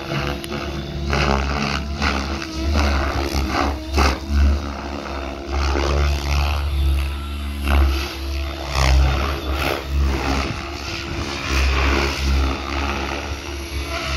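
700-size radio-controlled helicopter flying aerobatics, its rotor and motor noise swelling and fading again and again as it manoeuvres.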